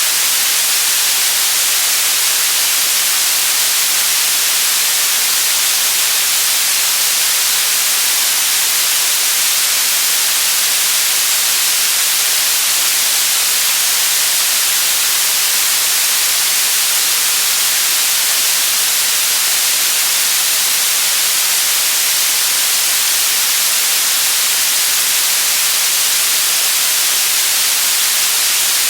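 Steady white noise: an even, unbroken hiss at a constant loud level, strongest in the high frequencies and thin in the bass.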